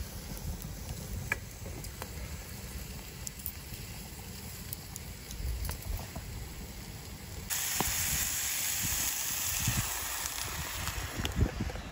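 A low rumble with a few faint crackles from a wood fire. About seven and a half seconds in, a loud steady sizzle starts suddenly as beaten egg is poured into a hot pan of mushroom hash.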